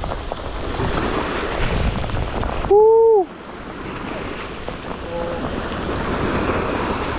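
Wind buffeting the microphone and river waves washing onto a rocky bank in the rain. About three seconds in, a loud half-second tone sounds, rising then falling slightly in pitch.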